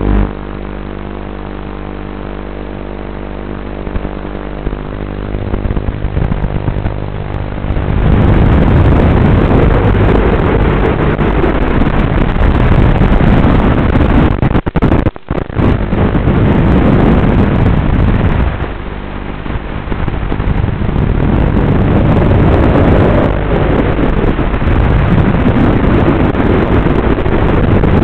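Electric motors and propellers of a small radio-controlled FPV aircraft, picked up by its onboard microphone: a steady motor hum at first, then from about a quarter of the way in a loud rushing of props and wind that swells and eases with throttle. It cuts out briefly halfway through as the video link breaks up.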